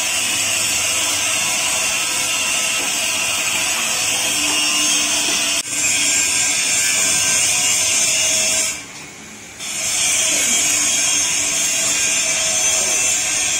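Petrol-engine-driven wood grinder running, its belt-driven rotor grinding wood into sawdust with a loud, steady, hissing mechanical noise. The noise drops away briefly about nine seconds in, then comes back.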